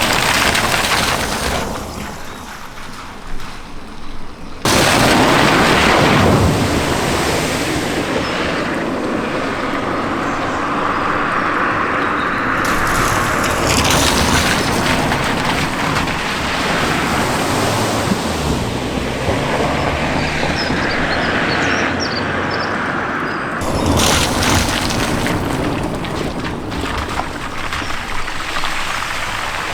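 Vehicles driving through deep floodwater at a river ford: engines running under loud rushing splashes of spray, with a sudden surge of splashing about five seconds in and another near the end.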